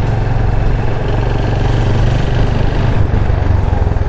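Yamaha FZ25's single-cylinder engine running steadily while the bike is ridden, its firing pulses giving a low, even note under rushing road and wind noise.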